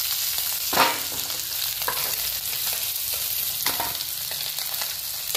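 Fish steaks sizzling in hot oil, a steady high hiss. A metal spatula clinks against metal three times as the fried pieces are lifted out, the first clink the loudest, about a second in.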